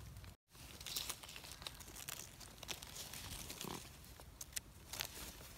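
Faint crackling and scraping: a kitchen knife scraping soil off a freshly picked wild mushroom's stem, with dry leaf litter rustling under the hands. There is a brief gap in the sound about half a second in.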